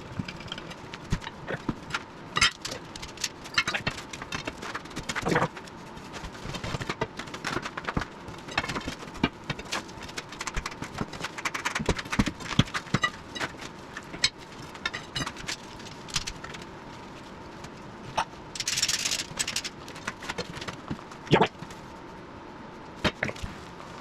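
Irregular metallic clinks and knocks from hand tools and metal parts being handled during track work on a skid steer, with a short hiss about 19 seconds in and one loud knock about two seconds later.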